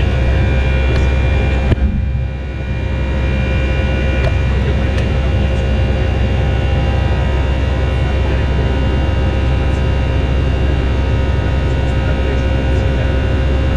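Airbus A319 cabin noise in the climb after take-off: steady engine and airflow noise with several constant tones over a deep rumble. Near two seconds in there is a short knock, and the sound dips for a moment before returning to its steady level.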